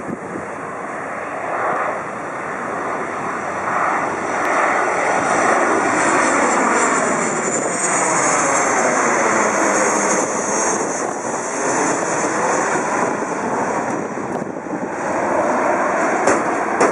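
Boeing 737 jet engines on landing approach, passing low directly overhead. The engine noise swells as the plane nears and is loudest while it is overhead. A high whine falls in pitch as it passes, and the noise eases a little as the plane moves away.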